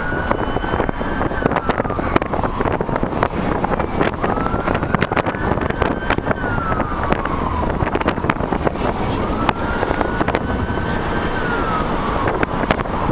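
Wind buffeting the microphone and road noise from riding in the open bed of a fast-moving pickup truck, with a police siren wailing underneath, rising, holding and falling about three times.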